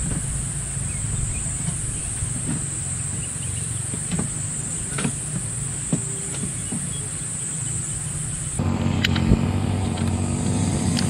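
Brush cutter (grass cutter) engine running steadily, with a constant high insect buzz over it. About two-thirds of the way through, the engine drone turns fuller. Just after that come two sharp clicks as a lighter is struck at a portable gas camping stove.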